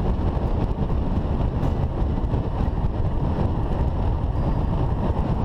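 A motorcycle being ridden at road speed: its engine running under heavy wind noise on the microphone, which together make a steady, even noise that is strongest in the low end.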